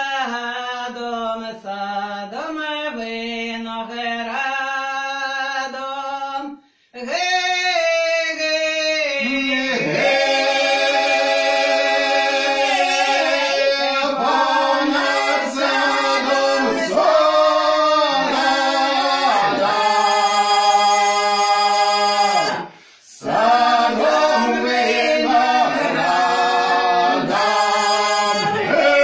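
Ukrainian folk song sung a cappella by a mixed group of two men and two women in close harmony. Fewer voices carry the opening line; after a brief break about seven seconds in, the full group sings together, with another short breath break about two-thirds of the way through.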